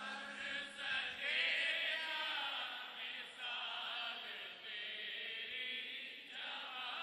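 Male voices softly chanting a drawn-out, wavering melody, unaccompanied, during a naat recitation.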